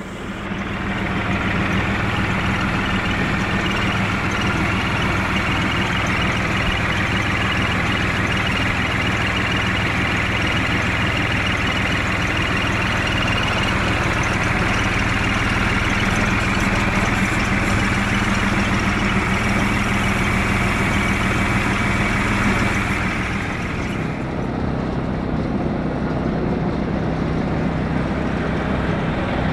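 Tractor engine running steadily at a constant speed, with a hiss over it. About 24 seconds in the sound changes to a different, lower engine note with much less hiss.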